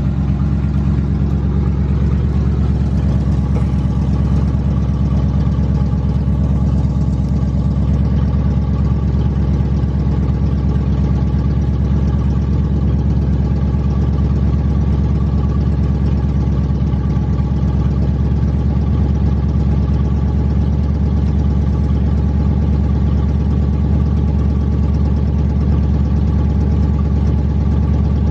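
1992 Chevrolet Camaro's engine running steadily as a deep, even rumble, with no change in engine speed.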